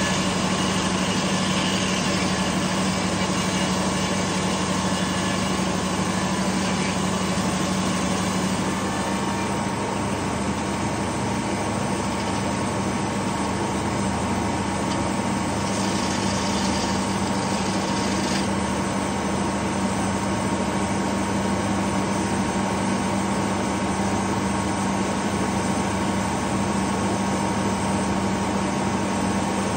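Detroit Diesel engine screaming at steady high speed, driving a large circular sawmill blade through a pine log, with the blade's cutting noise over the engine note. The engine holds a constant pitch throughout, with a brief brighter rasp of the cut partway through.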